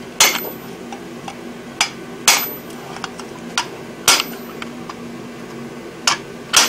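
Sledgehammer blows landing on a handled top tool held on red-hot steel over the anvil: four heavy, ringing metal strikes about two seconds apart, each one after a lighter knock. A steady low hum runs underneath.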